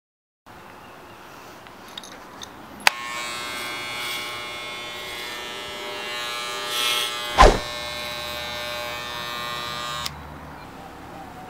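A corded electric hair clipper clicks on about three seconds in and buzzes steadily as it shears through a border collie's thick fur, then cuts off abruptly near the end. A single sharp knock comes partway through.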